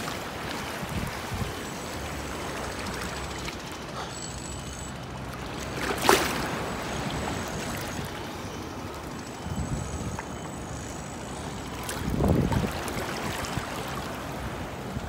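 Small waves lapping and washing in shallow water at the shoreline, a steady watery hiss, with a few low gusts of wind on the microphone. One sharp, sudden sound stands out about six seconds in.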